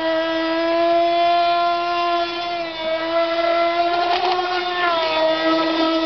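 Small high-revving engine of an FSR-V Tornado EVO 5 radio-controlled model running at a steady, high-pitched whine. The pitch sags briefly about five seconds in and then recovers.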